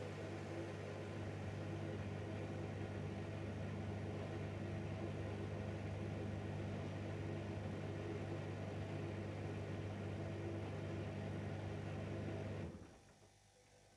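Bosch WAQ28470GB washing machine at the end of its spin slow-down, the empty drum turning slowly with a steady low hum. Near the end the hum cuts off suddenly as the machine stops driving the drum.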